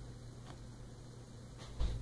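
Small knocks and clicks from handling things while painting nails: a faint click about half a second in and a sharper knock near the end, over a steady low electrical hum.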